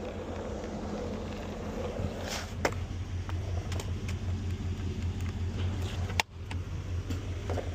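Car running with a steady low hum, a few sharp clicks over it, and a brief cut in the sound about six seconds in.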